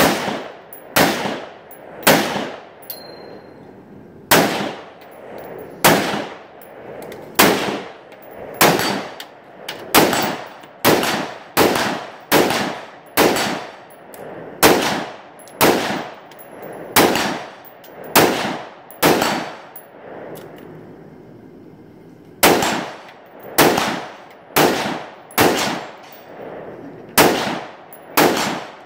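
Rifle shots fired one at a time at targets, roughly one a second, each with a short ringing echo, with a pause of about two seconds about two-thirds of the way through.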